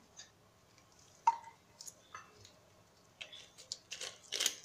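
Metal ladle and plastic spatula clinking and tapping against a metal mixing pot: one sharp clink about a second in, then a run of quick light knocks and scrapes near the end.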